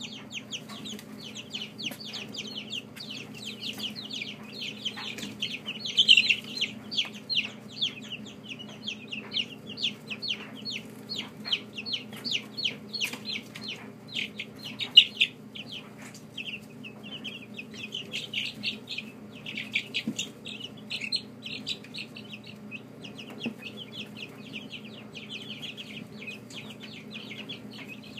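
A brood of young chicks peeping without pause, many short, high, falling cheeps overlapping, a few louder ones standing out, over a steady low hum.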